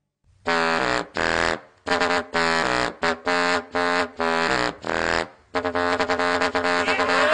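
A horn-like wind instrument plays a riff of about nine short separate notes. About five and a half seconds in, a steadier sound laced with rapid clicks takes over.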